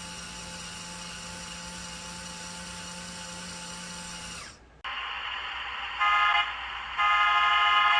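Small electric motors of a Lego Technic Control+ bulldozer hum steadily, then cut off. After that, engine sound effects play through a tablet's small speaker, with two horn blasts: a short one, then a longer one about a second later.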